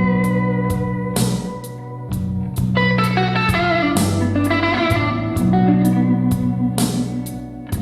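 Instrumental blues-style guitar music with bass and a steady beat, played back through a bookshelf loudspeaker under test.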